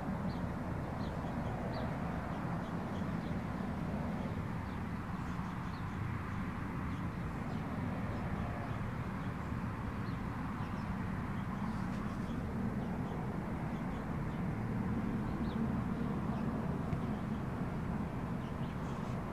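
Steady low outdoor background noise, with faint short high chirps now and then.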